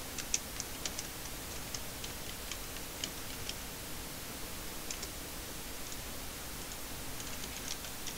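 Faint computer keyboard keystrokes and clicks in scattered runs, mostly in the first few seconds with a few more about five seconds in and near the end, over a steady hiss.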